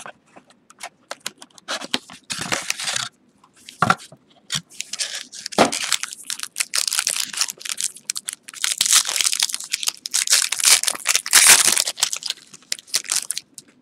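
Plastic wrap and a foil wrapper on a trading card box being torn open and crinkled by hand, in irregular crackling bursts that grow denser and louder in the second half.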